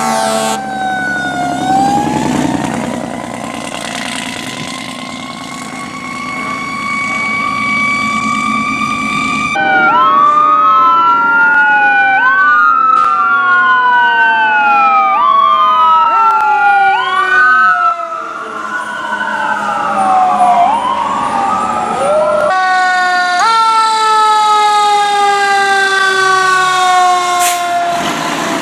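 Fire truck sirens across several short clips: first a slow, rising wail, then a siren sweeping up and down about once a second, and near the end a long falling wail.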